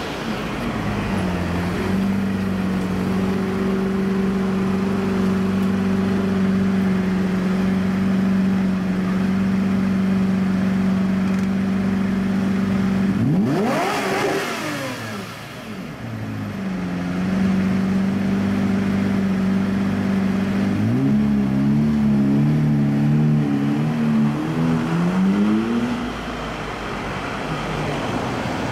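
Lamborghini Murciélago V12 idling with a steady low note, given one quick rev that rises and falls about halfway through. Later it revs several times in a wavering run that climbs in pitch.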